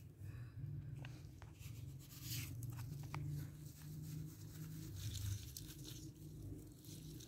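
African grey parrot nibbling at garden plants: scattered small crunches and clicks from its beak, with leaves rustling, over a steady low background hum.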